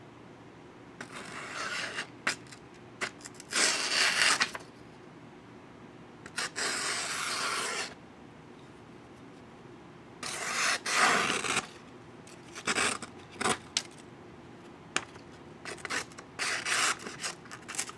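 Folding knife blades slicing through the edge of a sheet of printer paper in a sharpness test: several separate cuts, each a papery scraping stroke of a second or so, with quiet between them.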